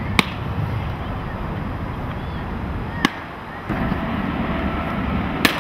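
Three sharp smacks of a baseball at home plate, hitting the bat or popping into the catcher's mitt: one just after the start, one about halfway through and one near the end, over a steady wind and distant traffic hiss.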